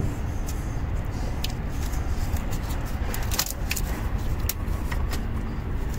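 Light clicks and rattles of a plastic dipstick handle and metal dipstick tube being worked into place by hand, over a steady low rumble.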